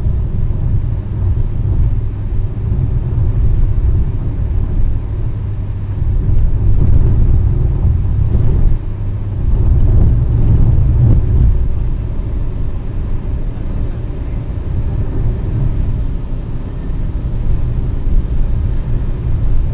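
Car cabin noise at highway speed: a steady low rumble of tyres on asphalt and the engine, heard from inside the car.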